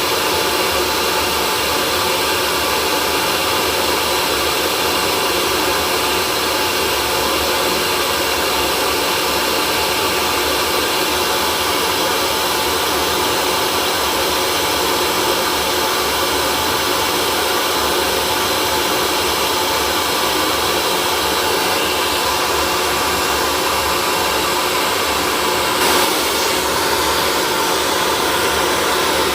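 Hair dryer running continuously: an even blowing noise with a steady motor whine, unchanging throughout.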